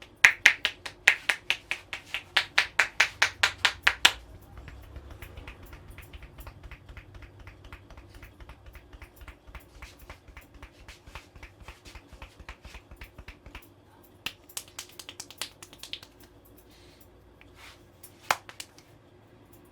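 Hand tapping on the head in a barber's head massage: a fast run of loud, sharp strikes about four to five a second, then a longer run of softer, quicker tapping. A few single sharp snaps come near the end.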